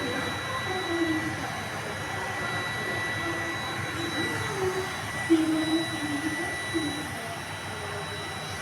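A steady mechanical whir with a thin, constant high whine.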